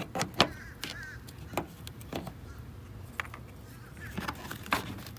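Plastic push-pin clips being prised out of a Dodge Durango's radiator-support trim panel with a trim tool: a run of short, sharp clicks and snaps, about ten of them, irregularly spaced.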